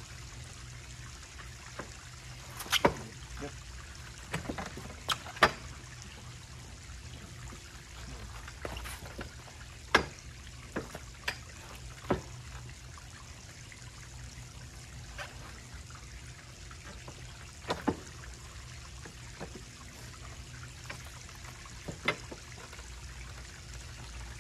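Arm-wrestling table and gripping hands giving about a dozen sharp clicks and knocks at irregular moments as two arm wrestlers strain, the loudest about 5 and 10 seconds in. Underneath is a steady trickling background.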